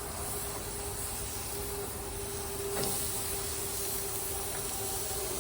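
Chicken and vegetable kebabs sizzling on a hot preheated grill: a steady hiss, with a faint click a little before the three-second mark.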